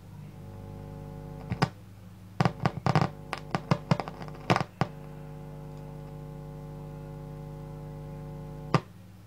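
Mains hum from a home-built valve amplifier's speaker: a steady buzz with many overtones, caused by the tube's filament, which is also its cathode, running on a low-voltage AC supply. The hum breaks up in a string of crackling pops as the filament connection is made and broken. It cuts off with a last pop near the end.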